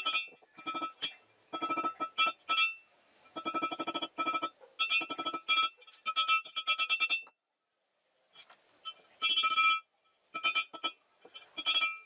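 A hand hammer striking steel rebar on a steel I-beam anvil, in quick bursts of blows. Each blow gives a bright metallic ring. The blows break off for about a second past the middle, then come sparser before picking up again.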